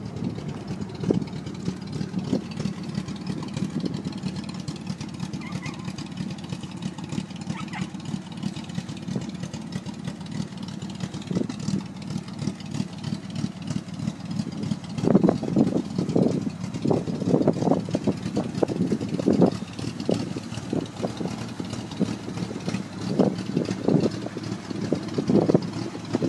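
An engine idling steadily, a low even hum. From about halfway, irregular louder rumbling gusts of noise come over it.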